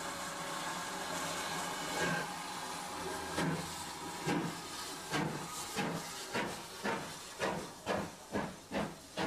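Steam locomotive hissing steam, then starting away: exhaust chuffs begin about two seconds in and come steadily quicker, from about one a second to over two a second, as the engine gathers speed.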